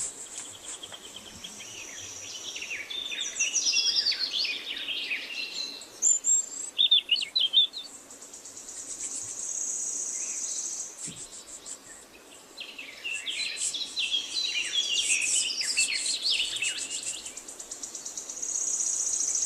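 Birds chirping in several bursts of high, quick twittering, with trills and falling runs of notes.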